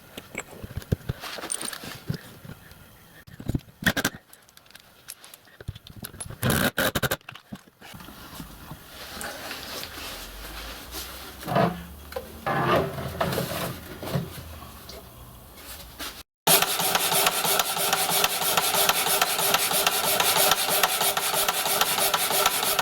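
Workshop work sounds in short, abruptly cut segments: rubbing and scraping with a few sharp knocks. For the last six seconds or so a power tool runs loud and steady.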